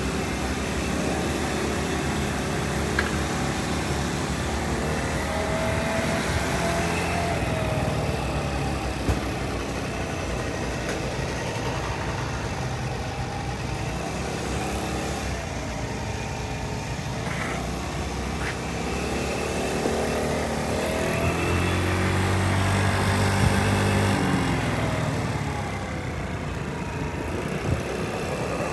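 Vehicle engine idling steadily, with a deeper, louder engine note about three quarters of the way through.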